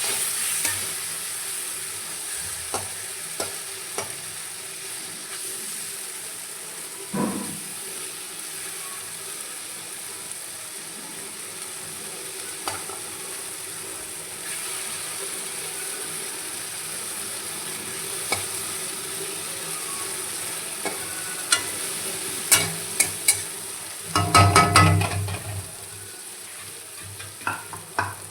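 Food sizzling as it fries in a pan, with a steady hiss. A utensil now and then clicks and scrapes against the pan, with a quick run of knocks about three-quarters of the way through.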